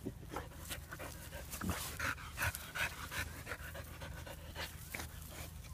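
Puppy sniffing and panting with its nose pushed into a gap between rocks: a run of short, quick sniffs and breaths, busiest about two to three seconds in.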